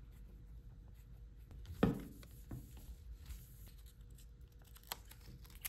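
Cleaning wipe rubbing across the glass cover screen of a Galaxy Z Fold 6 in soft, faint strokes, with a short knock from handling the phone about two seconds in and a small click near the end.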